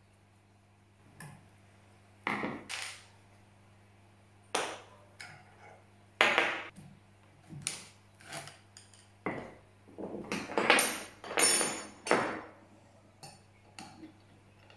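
Metal hand tools and compact-router parts knocking and clinking as the router is taken apart: the plunge base comes off and a pair of spanners work on the collet nut. The knocks come one at a time at first, then bunch into a run of ringing metal clinks in the last third.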